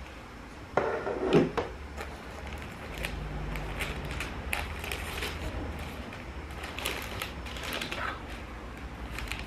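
A rigid cardboard gift box being opened by hand: the lid slides off the base with a louder scrape about a second in, then tissue paper rustles and crinkles as it is folded back, with small knocks of the box being handled.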